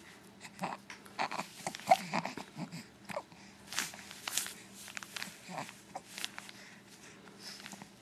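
A baby making small noises: short grunts, snorts and breathy squeaks, coming in an irregular string and dying away toward the end.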